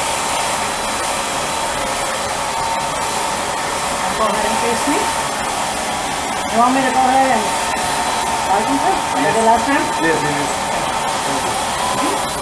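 HVLP spray tan machine's turbine blower running steadily, with air hissing from the spray gun and a thin steady whine. A faint voice murmurs under it in the middle.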